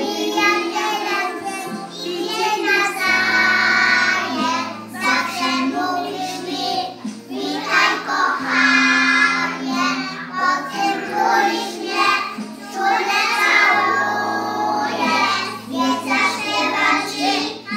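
A group of young children singing a song together, over a steady instrumental backing of held low notes.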